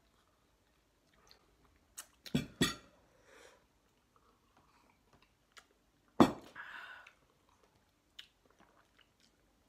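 Eating sounds from spicy instant noodles: chewing and slurping, broken by a few sharp clicks about two seconds in and a louder knock about six seconds in, followed by a short breathy rush of noise.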